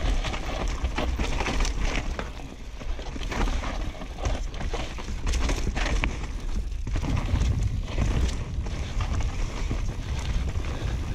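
Downhill mountain bike descending a dirt trail at speed, heard from a camera on the bike: wind buffeting the microphone with a steady rumble, tyres on the dirt, and the bike clattering over bumps and roots.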